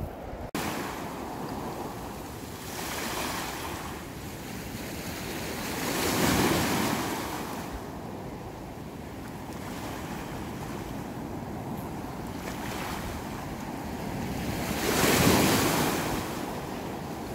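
Sea waves laden with floating chunks of ice and slush washing in to the shore, surging louder about six seconds in and again near the end, with wind on the microphone.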